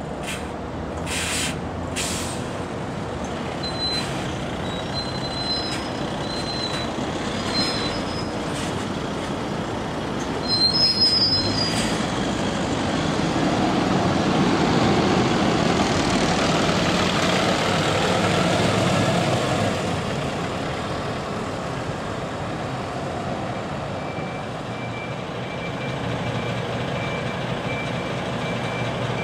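Diesel single-deck bus pulling away and passing close by, its engine swelling to its loudest in the middle and then fading, with short air hisses near the start and a brief brake squeal just before it passes. Near the end a faint, evenly spaced reversing beeper sounds.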